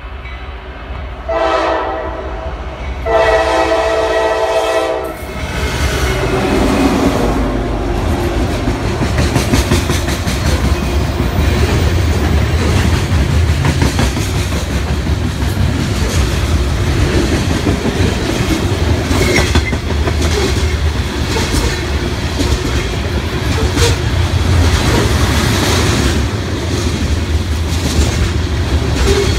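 A third-generation Nathan K5LA five-chime horn on the lead GE D9-44CW diesel locomotive sounds a short blast and then a longer one. The locomotives then pass with a deep rumble, followed by a long mixed freight train rolling by with steady wheel clatter.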